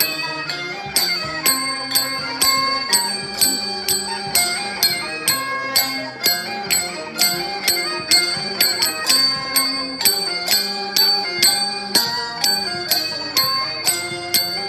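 Music with a steady beat of about two strikes a second under a melody.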